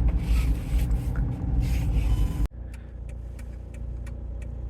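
Road and engine rumble inside a moving car. About halfway through it cuts off abruptly to a quieter, steady cabin hum with a quick run of sharp ticks.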